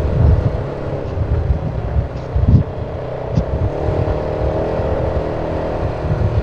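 Off-road vehicle engine running steadily as it drives over a rough dirt trail, with low rumbling and a couple of thumps from bumps about two and a half and three and a half seconds in.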